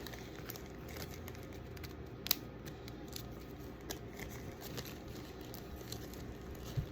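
Light handling noises: scattered small clicks and faint rustles of bag-making materials being handled, with one sharper click about two seconds in.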